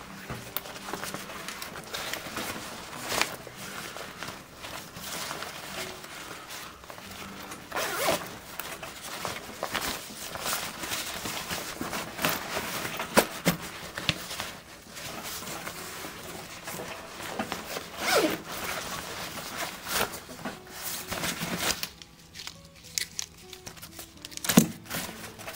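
Zippers on a Shimoda Explore v2 camera backpack being pulled open and shut in repeated quick strokes, with background music underneath.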